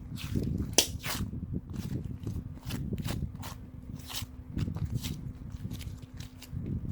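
Hands squishing, pressing and poking soft clay slime, giving irregular small crackles, pops and sticky clicks, several a second, over a steady low hum.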